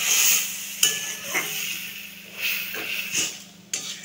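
A flat metal spatula stirring and scraping a wet curry of potatoes and beans around a metal wok, with a sizzle from the pan and several sharp clacks of the spatula against the wok. The sound cuts off abruptly near the end.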